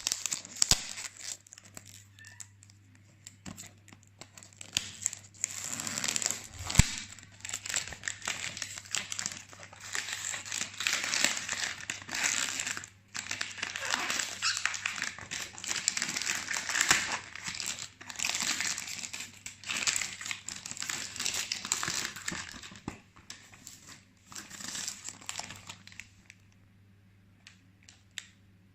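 Perfume box packaging being unwrapped by hand: plastic wrapping crinkling and rustling in irregular bursts with sharp crackles, stopping a couple of seconds before the end.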